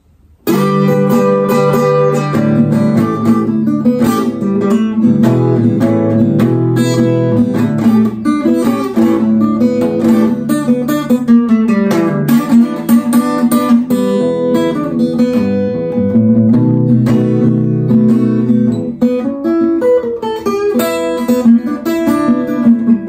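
Steel-string acoustic guitar played solo, starting about half a second in: a blues phrase in E with bass notes and chord tones, mixing A-chord licks into the E part. It has a slip near the end.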